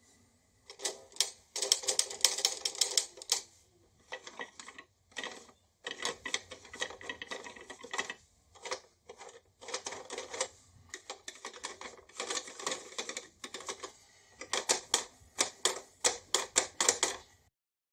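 Old plastic toy mechanism clicking and rattling in repeated bursts of rapid clicks with short pauses between them, stopping abruptly near the end. The mechanism is still not working properly.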